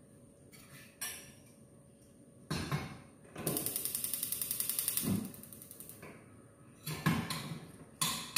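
Gas hob igniter clicking rapidly for about two seconds as a burner is lit, after a saucepan is set down on the grate with a knock. A couple more knocks of cookware come near the end.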